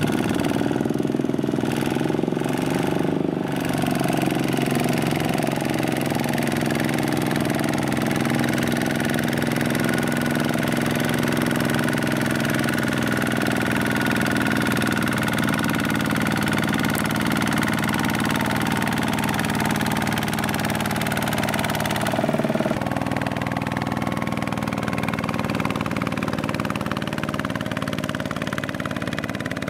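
Single-cylinder diesel engine of a Kubota two-wheel walking tractor running steadily under load as it pulls a loaded trailer through mud. The tone shifts abruptly about 22 seconds in.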